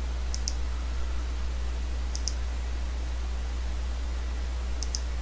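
Three quick double clicks of a computer mouse, a couple of seconds apart, over a steady low hum and faint hiss from the recording setup.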